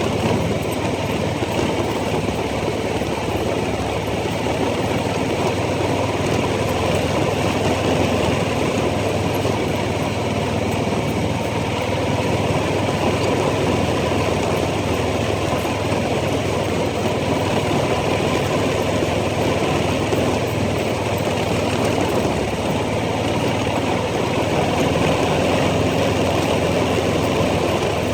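ATV engine running steadily while riding, the engine speed holding fairly even with no big revs.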